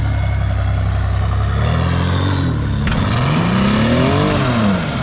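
Off-road buggy engine running steadily, then revving up and dropping back about four seconds in.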